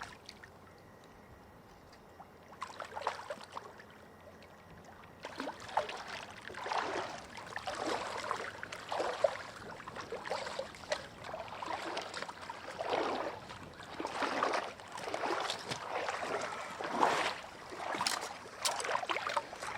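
Water splashing and sloshing in irregular bursts, from a freshly caught steelhead thrashing in the shallows at the water's edge. The splashing starts about five seconds in, after a quiet stretch.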